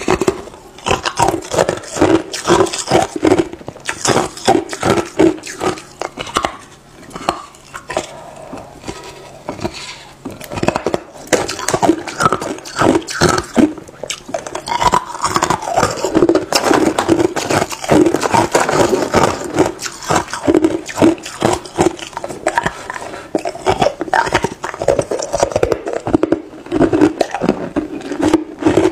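Chunks of ice being chewed up close to the microphone: a continuous run of sharp cracks and crunches, with a few short quieter gaps.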